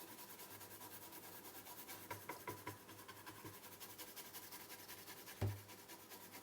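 Faint scrubbing of a brush on a circuit board being washed clean, a few light strokes about two seconds in, with one short dull thump near the end.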